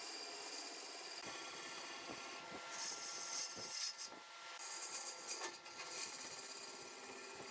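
Wood lathe running with a faint steady hum while a tool rubs and scrapes against the spinning wood in uneven strokes.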